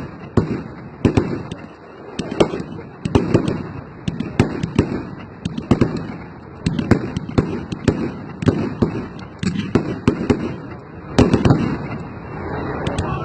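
Fireworks exploding overhead in a steady barrage, sharp bangs about once or twice a second, each with a rumbling echo, and a dense cluster of bangs near the end.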